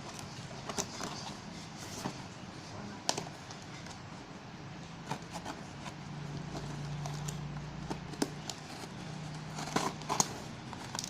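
Cardboard shipping box and packaging being handled and opened: scattered clicks, taps and short scrapes at irregular moments, over a faint low hum.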